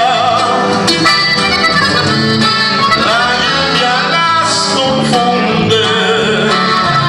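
Norteño band playing live: button accordion carrying the melody over bajo sexto strumming and an electric bass line, with a steady beat.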